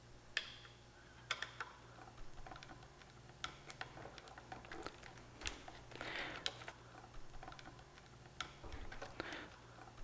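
Faint, irregular small clicks and light scraping of a Phillips screwdriver working on the screws of a car's interior door handle mechanism.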